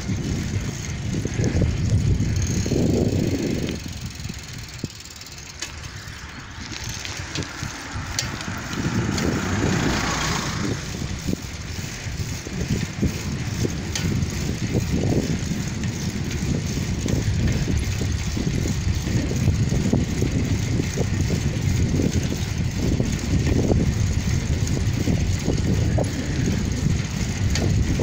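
Irregular low rumble of wind buffeting a phone microphone while travelling along an asphalt road, with a rush of hiss around eight to eleven seconds in.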